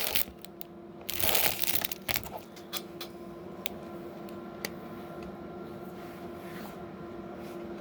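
Plastic Lego pieces being handled: a short rustle about a second in, then a few light clicks, over a steady faint hum.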